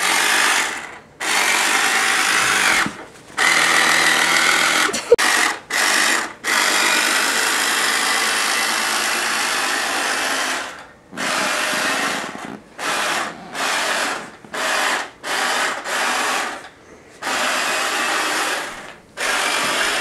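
Electric motor and gearbox of a battery-powered toy ride-on four-wheeler running with a whine, switching on and off over and over: a long run of several seconds near the start, then a string of short bursts.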